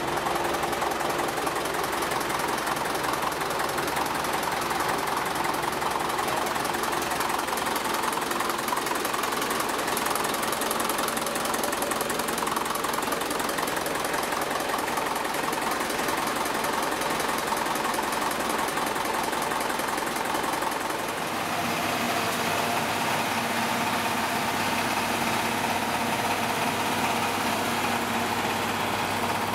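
Old stationary engine powering a belt-driven sawmill, running steadily under no cutting load, with the clatter of the mill's shafts and belts turning. The engine's steady hum becomes clearer about two-thirds of the way through.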